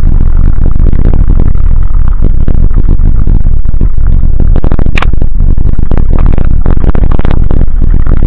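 Dualtron Ultra electric scooter ridden fast over a gravel dirt track: heavy wind buffeting on the microphone and constant rattling and clattering over the stones, loud and distorted. There is one sharp knock about five seconds in.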